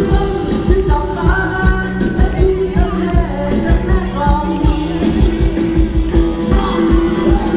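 Live Thai ramwong band playing dance music, a singer's voice carried over a steady drum beat.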